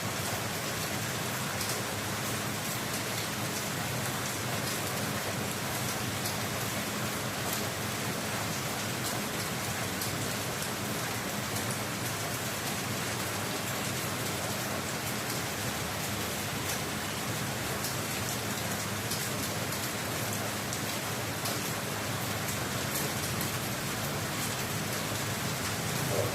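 Steady rain falling, with scattered sharper drops tapping on a surface.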